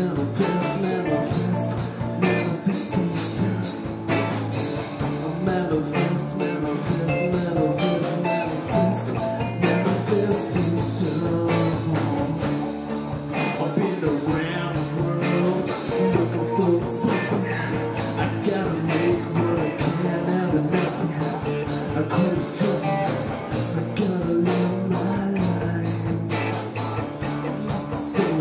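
Live rock band playing: electric guitars, electric bass and a drum kit keeping a steady beat, with a man singing.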